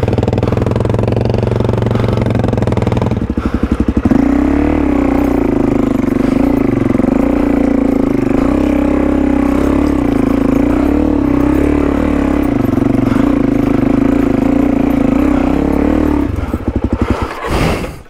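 Off-road motorcycle engine revving as the rider tries to pull away on a steep, rutted climb. It runs at lower revs for about four seconds, then jumps to high revs held steady for about twelve seconds, and eases off near the end.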